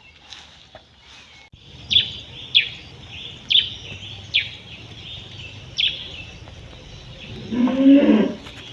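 A bird calling, a string of short, sharp downward chirps about one every second or less. Near the end a cow moos once, low and drawn out.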